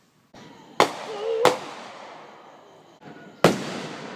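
Aerial fireworks bursting: three sharp bangs, the first two about half a second apart and the third about two seconds later, each trailing off in a long echoing rumble.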